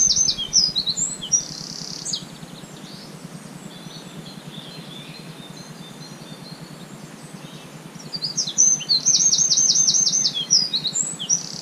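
A songbird singing two song phrases about eight seconds apart, each a fast run of high repeated notes ending in a short twisting flourish. A faint steady background hiss fills the gap between them.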